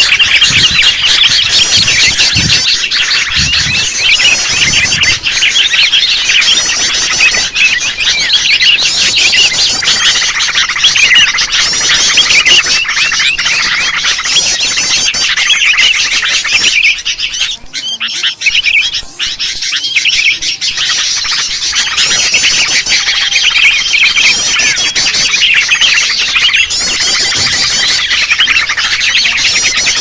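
Noisy chorus of many sooty-headed bulbuls (kutilang) chattering and calling over one another, a rowdy lure recording meant to draw in wild bulbuls. The calling thins out briefly a little past halfway, then resumes as thick as before.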